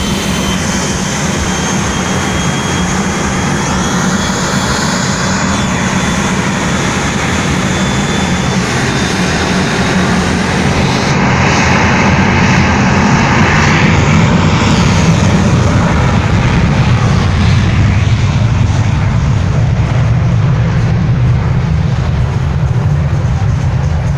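Jet airliner engines at close range: a high whine over a loud rush that builds toward the middle, then settles into a deep rumble.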